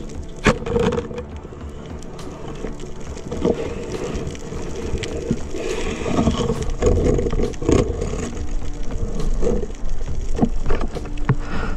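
Muffled underwater knocks, clicks and scrapes over a steady low rushing, picked up through an action camera's waterproof housing on a speargun dive.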